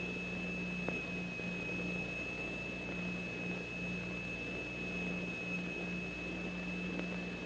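Steady high pure tone of a plate set vibrating by a crystal oscillator, strewn with sand and lycopodium powder, holding one pitch throughout over a low hum.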